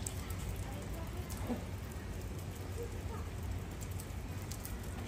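Steady outdoor background noise with a low rumble, a few faint clicks, and faint distant voices; the goat itself makes no clear call.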